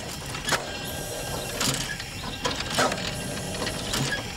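Replica of Trevithick's high-pressure steam locomotive working slowly: its engine and rods clank and puff in a regular beat, about once a second.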